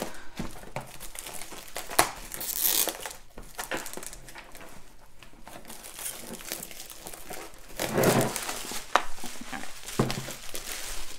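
Clear plastic shrink wrap being peeled and torn off a long cardboard box, crinkling in irregular bursts, with a couple of sharp clicks as the box is handled.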